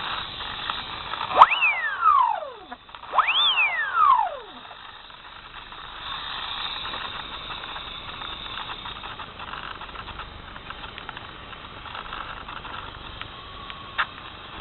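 The SpyHawk RC plane's electric motor whines up sharply twice, each time falling away in pitch as it spins down. Steady wind noise lies under it.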